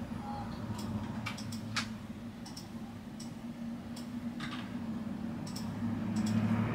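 Scattered, irregular clicks of a computer mouse during on-screen layout work, over a steady low hum.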